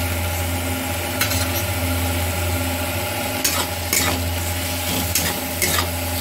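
Onion-tomato masala with chili-ginger-garlic paste sizzling in oil in a kadhai, stirred with a metal spatula, with several sharp scrapes of the spatula against the pan.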